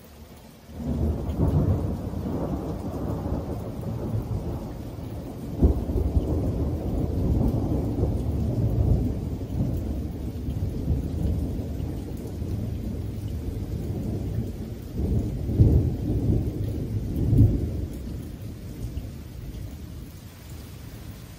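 Thunder from lightning about 10 km away: a deep rolling rumble sets in about a second in and goes on for some twenty seconds. Sharper claps come about six seconds in and twice more near the end before it dies away. Rain keeps falling underneath.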